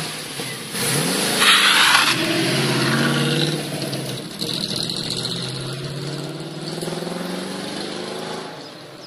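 A Ford Capri Perana's Windsor 302 V8 revs up as the car pulls away, loudest about two seconds in. The engine then runs steadily and fades as the car drives off.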